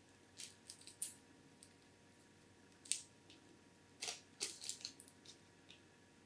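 Packaging of an AIO liquid cooler handled during unboxing: short crinkles, rustles and clicks of plastic and cardboard, scattered at first with a quick cluster of them about four seconds in.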